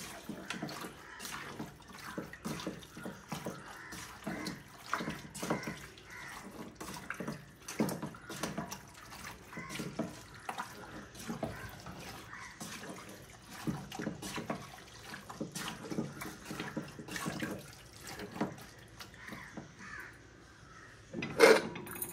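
Water running and splashing into a pressure cooker of pork, with irregular clinks and knocks of the pot and utensils throughout and a louder clatter near the end.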